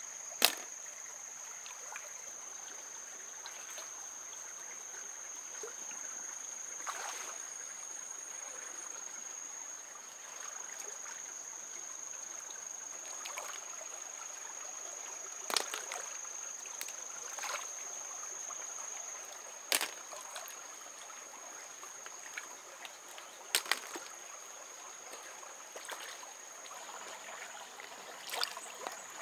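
Shallow stream trickling over stones, with a steady high tone over it. Now and then come sharp clicks and small splashes as stream snails are picked from the water and set down; the loudest comes about half a second in.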